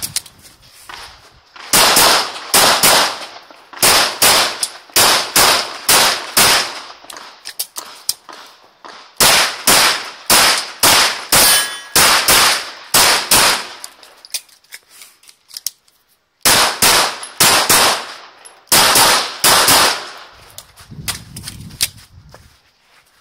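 Glock 34 9mm pistol fired rapidly in pairs and strings of shots, close to the microphone, with pauses of one to two seconds between strings.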